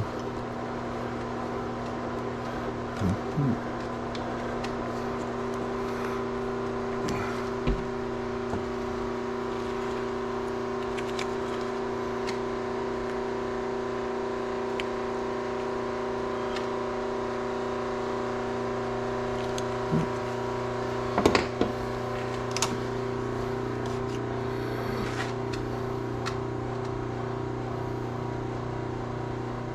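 Steady machine hum from the workshop, with a few light clicks and knocks of parts being handled, the loudest cluster a little past two-thirds of the way through.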